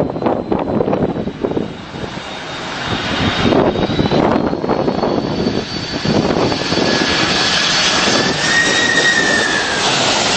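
Jet airliner engines whining as the aircraft comes in to land, over wind gusting on the microphone. A high engine whine comes in about three and a half seconds in, joined by a lower one that rises and falls near the end.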